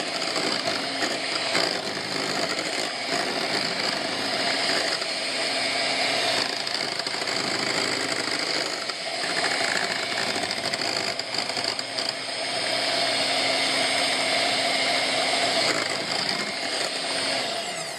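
KitchenWorks electric hand mixer running steadily, its twin beaters whisking a thin, liquid ice-cream base in a glass bowl.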